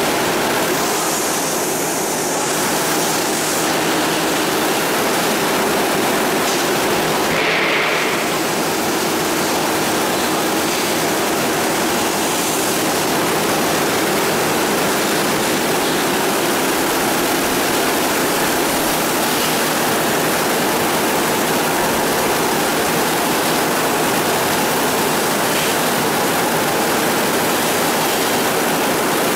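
Steady rushing, churning water in a stainless-steel fish-washing tank, the wash agitated into froth to tumble and thaw frozen fish, with machine noise from the line mixed in.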